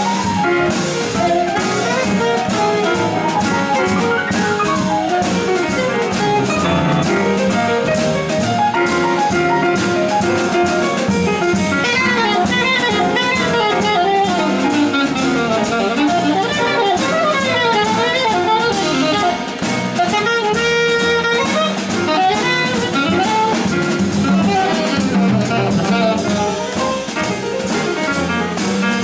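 Live jazz quartet of alto saxophone, piano, double bass and drum kit playing, with quick melodic runs rising and falling over a steady cymbal beat.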